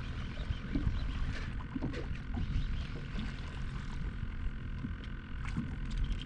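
Fishing reel being cranked as a small speckled trout is reeled in, with a steady low rumble of wind and water against the boat and scattered light clicks. Short splashy sounds near the end as the fish comes to the surface.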